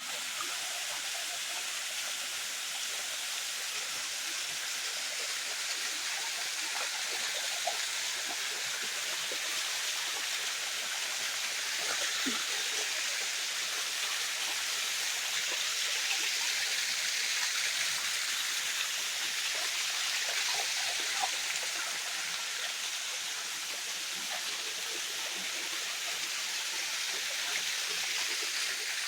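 Bua Thong Waterfall's water running steadily: an even, unbroken hiss of rushing water.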